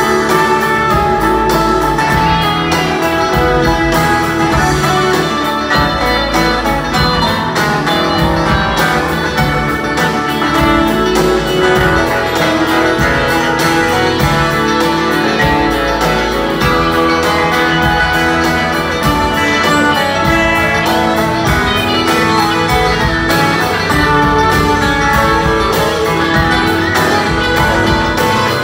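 Live band playing a song on acoustic and electric guitars, keyboards, drums and upright bass, with a steady beat.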